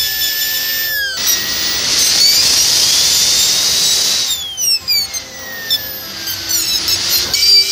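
High-speed dental air-turbine handpiece whining as its bur cuts a tooth. Its pitch drops as the bur bears on the tooth, with a rushing hiss through the middle, then slides steadily down for about three seconds and jumps back up near the end as the load comes off.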